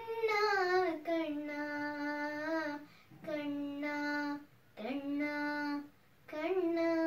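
A girl singing alone without accompaniment: long drawn-out held notes in four phrases with short breaths between them. The first phrase wavers and slides down before settling.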